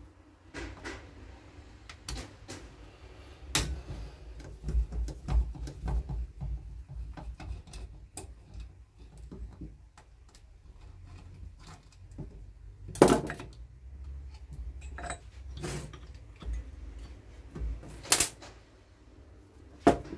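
Hand tools clicking, scraping and knocking against a chainsaw's metal housing while screws are worked with a T-handle hex key, with two louder knocks, about two-thirds of the way through and again near the end.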